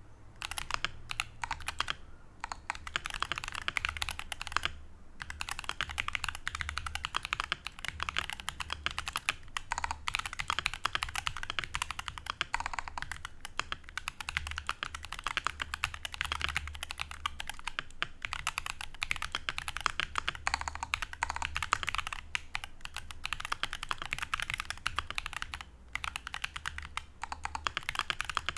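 Fast, continuous typing on a mechanical keyboard with stock, unlubed Akko CS Ocean Blue clicky switches and PBT double-shot cherry-profile keycaps, a dense patter of key clicks broken by a few brief pauses.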